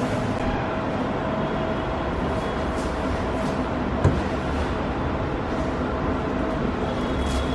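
Steady rumbling indoor noise with a faint hum, and one sharp knock about four seconds in.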